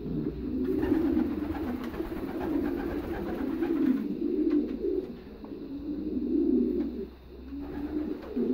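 Racing pigeons cooing, a near-continuous run of low, rolling coos from several birds with short lulls.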